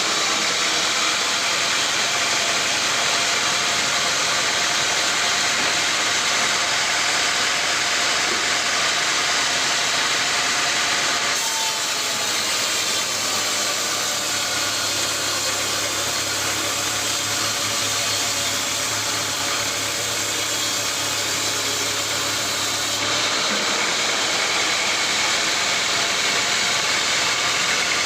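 Sawmill machinery running steadily, a loud even mechanical noise with an engine hum under it. The sound changes abruptly about a third of the way in and again near the end.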